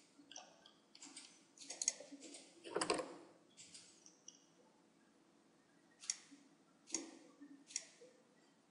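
Clicking of a computer mouse and keyboard while working in CAD software. A quick flurry of clicks ends in one louder knock about three seconds in, then single clicks come about a second apart near the end.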